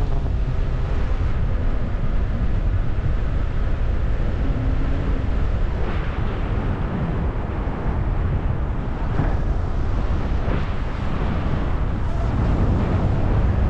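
Airflow rushing over the microphone of a camera mounted on a flying paraglider: a loud, steady wind roar with a few brief gusty swells.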